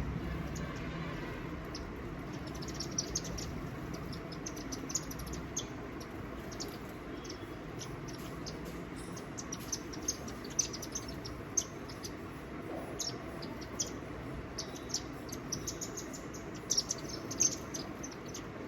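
Small birds chirping: many short, high chirps come irregularly over a steady background hiss, with more and louder ones in the second half.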